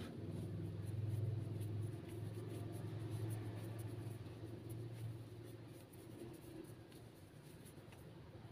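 Hands pressing and rubbing a ball of tapioca-floured fish dough while shaping it into a pouch for pempek kapal selam, a soft rubbing sound. Under it runs a low steady hum that is strongest for the first five seconds or so and then eases off.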